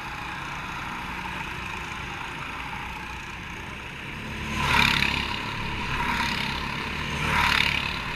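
Racing kart engines buzzing steadily. Three louder swells come about four, six and seven and a half seconds in, like karts passing close by one after another.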